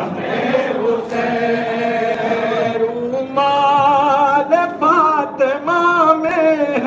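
Men chanting a noha, a Shia lament, in unaccompanied chorus. About halfway through, one voice comes in louder and clearer with a wavering, ornamented line.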